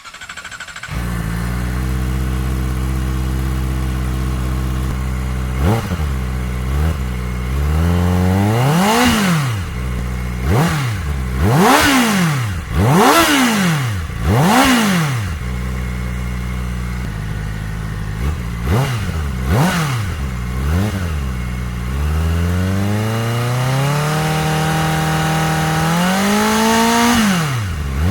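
Kawasaki ZX-4RR's 399 cc inline-four starts up and settles to a steady idle. It then takes a run of quick throttle blips, rising and falling sharply, and near the end a slow climb in revs that is held briefly before dropping back.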